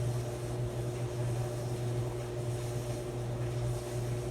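Maytag clothes dryer running: a steady low hum with fainter steady higher tones.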